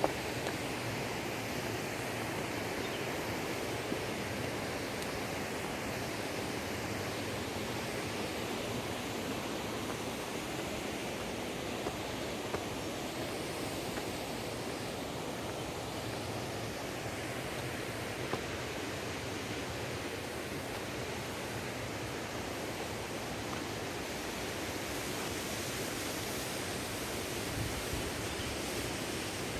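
Waterfall: a steady, even rush of falling water, with a few faint clicks here and there.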